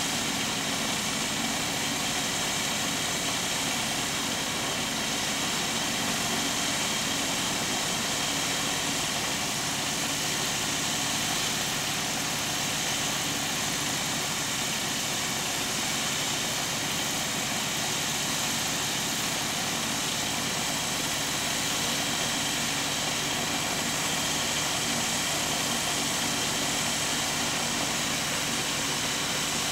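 Rotax 912 aircraft engines of a spherical airship running steadily on the ground, turning its ducted propellers, one even drone with no change in pitch.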